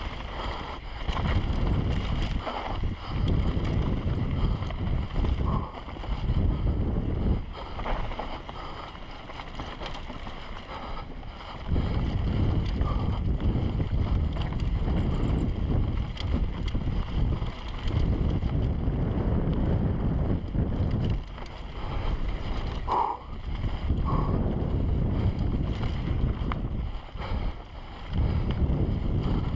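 Mountain bike racing down a dirt forest singletrack, heard from a rider-mounted camera: wind buffeting the microphone over the rumble of tyres on dirt, with the bike clattering over bumps. The noise eases off for a few seconds twice, about a third of the way in and near the end.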